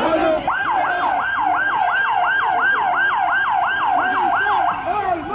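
Emergency-vehicle siren in a fast yelp, about three rising-and-falling sweeps a second. It starts about half a second in and stops shortly before the end.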